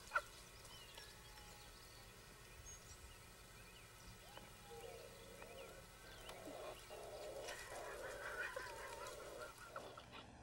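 Faint animal calls: scattered high chirps, then wavering, whining cries that come more often in the second half.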